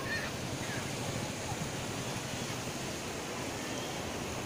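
Steady rushing noise of sea waves and wind at the water's edge, even throughout.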